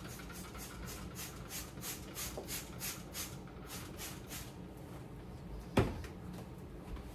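Cloth wiping kitchen surfaces in quick back-and-forth strokes, a soft swishing about three times a second, which stops after about four and a half seconds. Then one sharp knock as a plastic spray bottle is handled on the counter.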